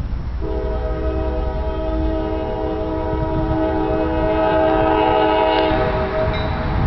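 Multi-chime air horn of an approaching freight train's lead locomotive, a CSX SD50, held in one long blast of several notes at once, the lower notes dropping out about a second before the upper ones. A steady low rumble lies under it.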